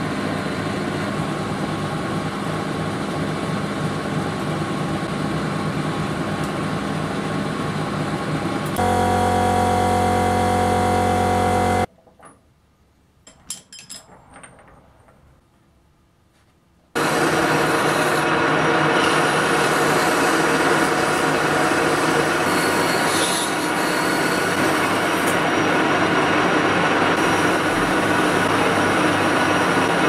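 Old 1K62 metal lathe running and turning steel, a steady machine noise with a few steady tones. Near the middle it drops out for about five seconds, with only a few light clicks, then the lathe runs again.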